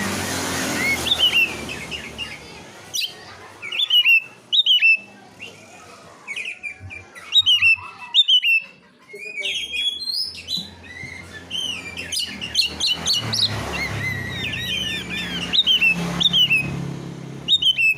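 Songbird chirping in many short, sharp whistled notes, often falling or hooking in pitch, at irregular spacing, over a faint low hum.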